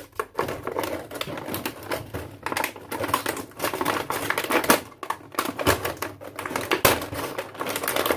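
Rapid, irregular clicking and clattering of hard plastic toy tools being handled, with short pauses twice.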